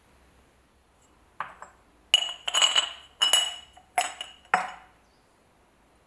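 Glass jar clinking as it is handled and set down on a wooden tabletop among metal parts: about seven sharp, ringing clinks between about a second and a half in and nearly five seconds in.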